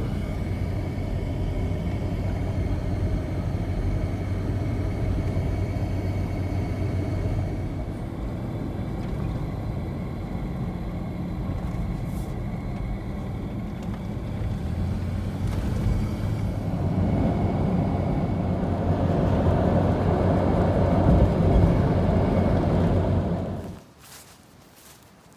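Motor vehicle driving: steady engine and road noise that grows louder in the last several seconds, then cuts off abruptly near the end.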